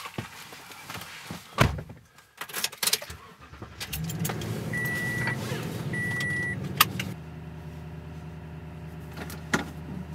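Inside a Toyota pickup's cab: a door thud and jangling keys, then the engine starts about four seconds in and runs at idle. Two short high warning chimes sound while it runs, and a seatbelt buckle clicks shut.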